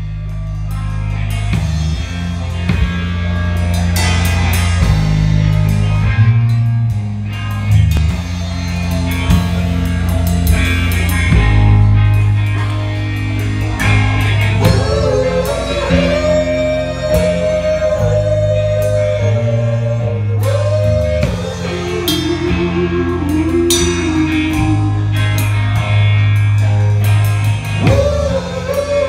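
Live rock band playing with full drum kit, electric bass and electric guitar, swelling up at the start. About halfway through, a long held melody note enters over the band.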